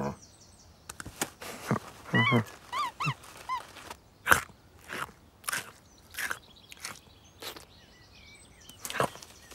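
Cartoon cat sound effects: a short vocal grunt from the cat at the start and another about two seconds in, then a series of short crisp crunching bites, about one every half second to second, as the cat eats.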